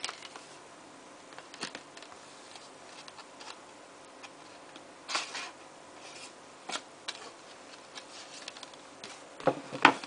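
DVD sleeves, booklet and disc being handled: scattered light clicks, taps and brief paper rustles, with a couple of louder knocks near the end.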